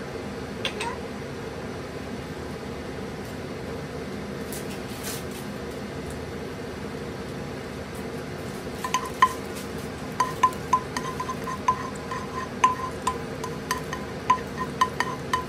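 Cumin seeds and sliced garlic frying in hot oil in a frying pan, over a steady low hum. From about nine seconds in comes an irregular run of sharp pops and clicks, some with a brief ring, as the cumin seeds start to crackle.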